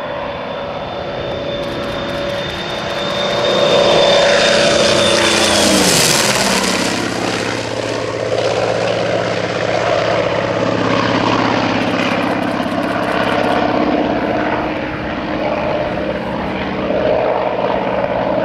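Douglas AD-5W Skyraider's Wright R-3350 eighteen-cylinder radial engine and propeller at power on a pass, growing louder, then dropping sharply in pitch about six seconds in as it goes by. It then runs on steady and loud as the aircraft banks around.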